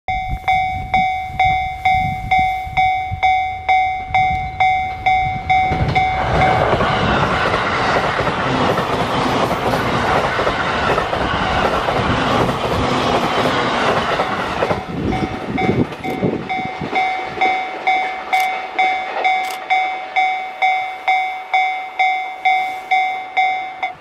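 Japanese level-crossing warning bell ringing at about two strikes a second. About six seconds in, a JR East E531-series electric train passes close by, its wheels rumbling and clacking on the rails and drowning out the bell for about nine seconds, after which the bell is heard ringing again.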